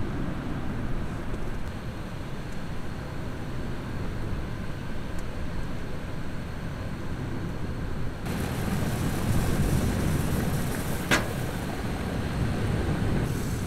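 Low, steady rumble of wind on the microphone. About two-thirds of the way in, a brighter hiss joins as a mess tin of rice steams over its small burner, with one sharp click near the end.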